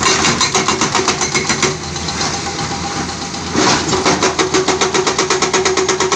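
Caterpillar 320D excavator's diesel engine running with a fast, even pulse. It gets louder with a stronger hum about three and a half seconds in.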